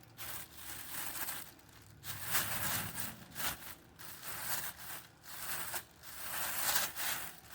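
Cloth shop rag rustling and rubbing in a series of irregular strokes, wiping old grease off a brake caliper slide pin.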